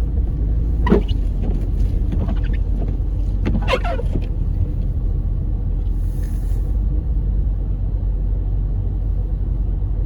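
Car driving on a snowy road, heard from inside the cabin: a steady low rumble of engine and tyre noise. Two short squeaky sounds come about one second and four seconds in.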